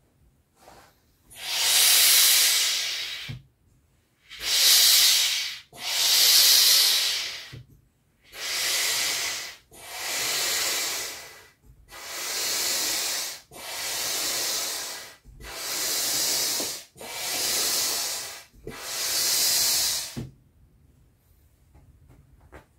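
Hand air pump inflating an Intex Wave Rider GP500 inflatable jet ski: about ten long rushes of air, one per pump stroke, each lasting about a second and a half. The pumping stops about twenty seconds in.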